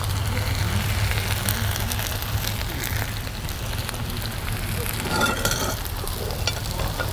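Campfire crackling in a steel fire ring, over a steady low hum, with a short clatter about five seconds in.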